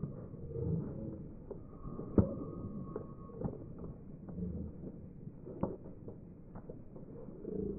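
Basketball play on an outdoor court: a ball bouncing, with scattered sharp thuds, the loudest about two seconds in, over a low murmur.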